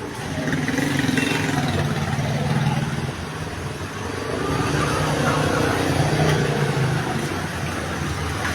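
Motor vehicle engines going by, swelling twice over a low hum.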